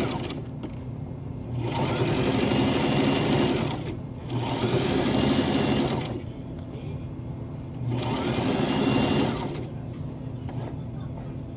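Electric home sewing machine stitching fabric in short runs: it stops just after the start, then runs three more times for about two seconds each, with short pauses between as the fabric is guided and turned.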